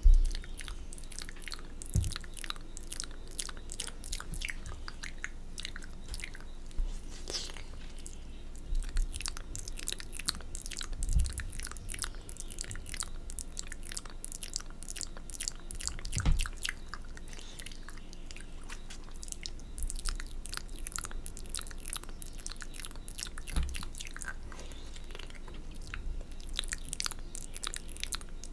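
Close-miked wet mouth sounds from ASMR spit painting: dense clicky lip smacks and licking as saliva-wet fingers are reached toward the camera. A few low thumps stand out, about 2, 11, 16 and 24 seconds in.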